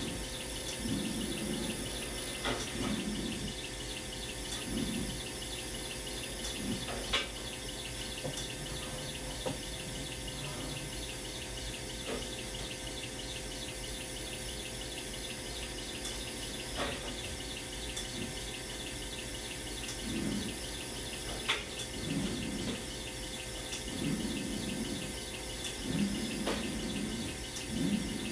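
Electric rolling mill running with a steady hum while hot steel is fed through its rollers, with occasional light knocks as the bar is turned and rolled again.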